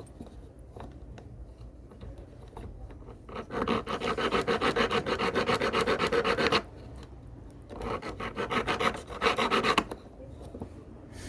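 Hand file rasping on a silver ring in quick back-and-forth strokes, about five a second, in two bouts of a few seconds each with a short pause between.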